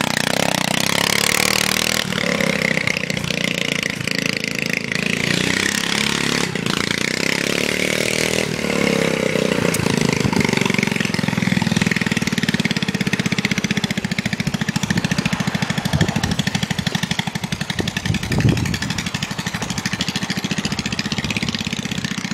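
Racing lawn mower's 13.5 hp Briggs & Stratton engine running hard, its pitch rising and falling as it accelerates and backs off through turns, then settling into lower, slower running in the second half. Two sharp knocks near the end.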